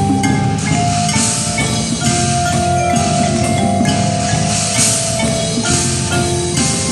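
Percussion ensemble playing on mallet keyboard instruments: rapid struck marimba-type notes under ringing sustained tones, one note held for about three seconds in the middle, with a few bright, washy hits on top.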